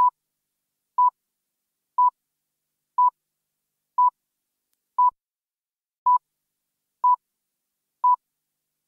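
Short electronic beeps, all at the same pitch, one each second, nine times with silence between them.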